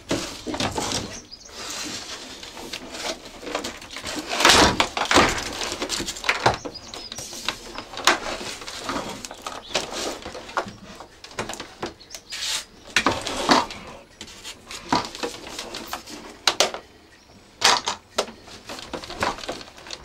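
Irregular knocks, clicks and scraping from the plastic housing of a red upright vacuum cleaner being handled and turned upright.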